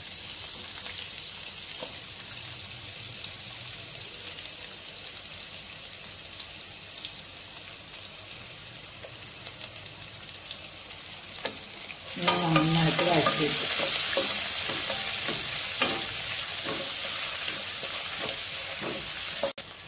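Sliced onions sizzling as they fry in hot ghee in a non-stick frying pan. The sizzle grows clearly louder about twelve seconds in, and a wooden spatula stirs them with light scrapes and knocks.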